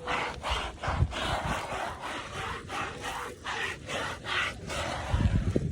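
Repeated rubbing or scrubbing strokes, about two a second with short breaks, typical of wiping or brushing up a spill of fluid.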